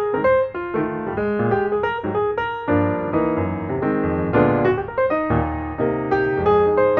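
Background piano music: a steady run of notes with chords underneath.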